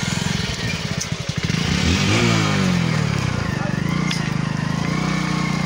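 Vehicle engine running at low speed. About two seconds in the revs rise, then hold steady.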